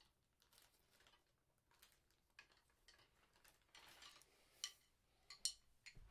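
Near silence broken by faint rustling and a few sharp clicks as a person moves about close by. A short rustle comes about four seconds in, and the sharpest clicks come after it.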